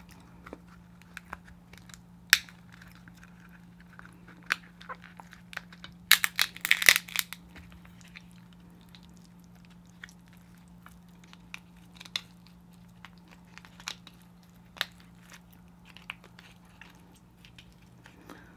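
King crab leg shell being cracked and picked apart by hand: scattered clicks and snaps, with a burst of crackling about six to seven seconds in. A faint steady low hum lies underneath.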